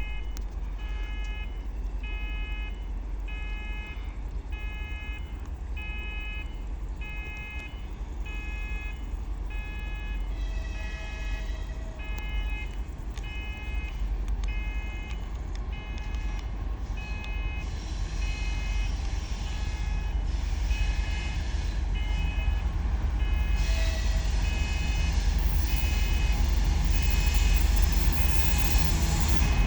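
Railway level-crossing warning signal beeping evenly, about one and a half times a second, as a freight train approaches. A low rumble grows steadily louder towards the end.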